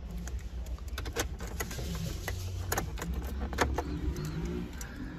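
Scattered small clicks and rattles of a hand working around a car's dashboard and centre console, with keys jangling, over a low steady hum in the cabin.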